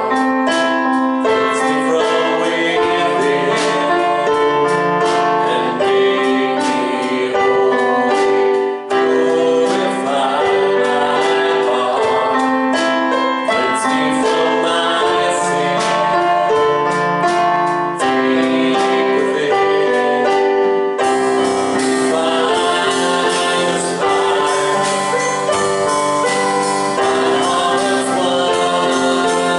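Worship music: sung praise with piano or keyboard accompaniment, sustained chords changing every few seconds.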